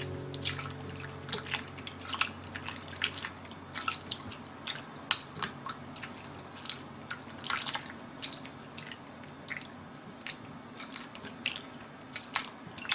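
Water sloshing and dripping as a hand kneads and squeezes soaked dried radish strips in a glass bowl of water, with small irregular splashes and squelches several times a second. The strips are being rubbed and washed to rid them of their radish smell.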